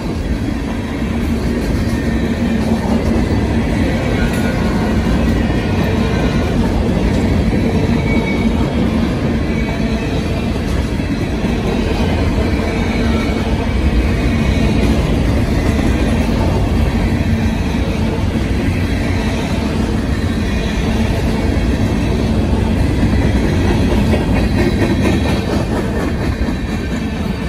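Freight train cars, tank cars and covered hoppers, rolling past close by: a steady rumble of steel wheels on the rails.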